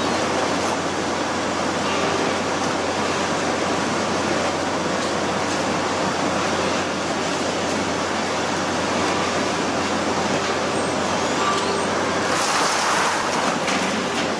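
Steady drone of a crab boat's engine and deck machinery with a low hum and a rushing, water-like noise over it; a brief louder hiss comes about twelve and a half seconds in.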